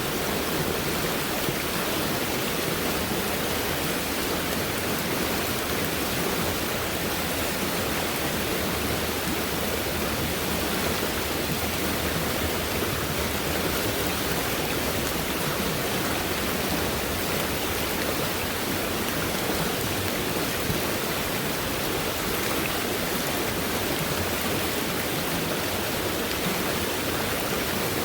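Fast-moving stream running high after heavy rainfall, its water rushing in a steady, unbroken flow.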